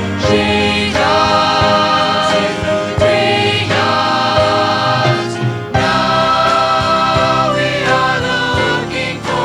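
A song sung by several voices together, with instrumental accompaniment.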